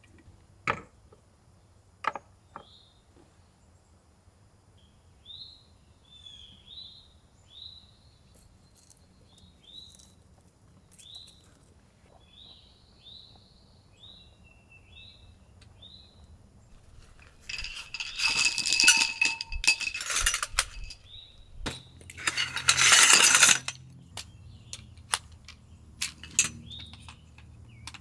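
Metal camp cookware and utensils clinking and clattering as they are handled, with a ringing clatter past the middle and a louder rustling clatter soon after. Earlier, a bird chirps repeatedly in short rising notes, over scattered light clicks.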